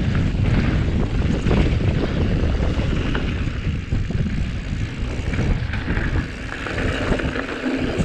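Wind buffeting an action camera's microphone during a fast mountain-bike descent, mixed with mountain-bike tyres rolling over a dry dirt and gravel trail and the bike's small knocks and rattles. The low rumble eases a little near the end.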